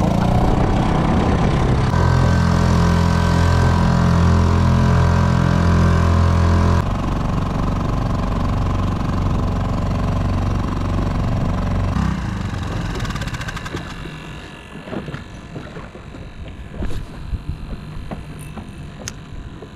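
Small boat outboard motor running under way. Its pitch steps up about two seconds in, eases off near seven seconds, then the motor stops about twelve seconds in, leaving scattered light clicks.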